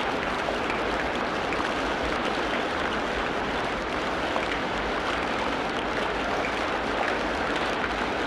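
Steady wash of water noise, with a few faint, short bird chirps.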